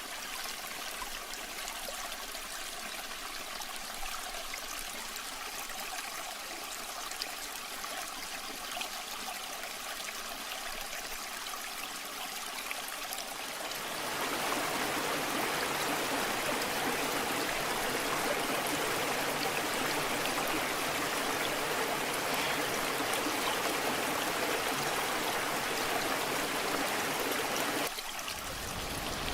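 Running water of a waterfall, a steady rushing hiss that becomes louder and fuller about halfway through and dips briefly near the end.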